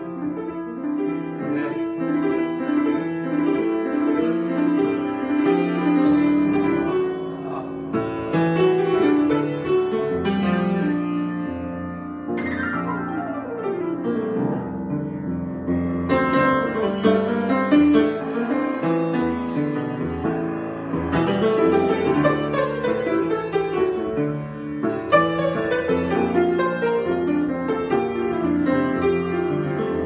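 Solo grand piano improvisation: dense chords and quick figures, with a fast downward run of notes about twelve seconds in and a strong accented chord around twenty-five seconds in.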